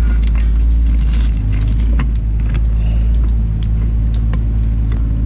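BMW 535i GT's straight-six engine idling with a steady low hum.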